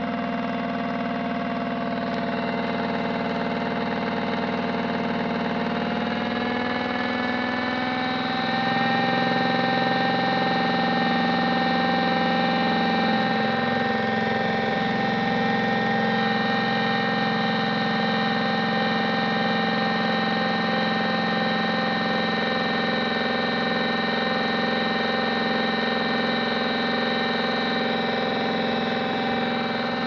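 Modified Miele W1 toy washing machine spinning its drum, its motor giving a steady whine. About seven seconds in the whine rises in pitch and gets a little louder as the drum speeds up, then holds steady.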